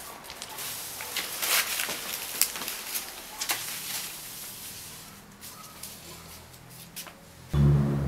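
Rustling swish of a leafy branch swept and shaken over a tiled floor, with scattered brushing strokes and small clicks. Near the end a loud, low, steady hum cuts in suddenly.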